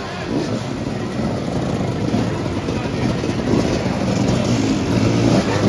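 Several motoball motorcycle engines running at once, their throttles blipped so the pitch keeps rising and falling in overlapping revs, with the loudest revving near the end.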